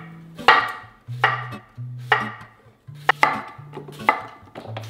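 Kitchen knife chopping cucumber on a cutting board, about one cut a second. Soft background music with a slow bass line plays underneath.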